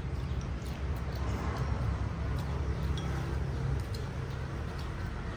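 Chopsticks clicking lightly against porcelain rice bowls while eating, a few scattered small clicks over a steady low rumble.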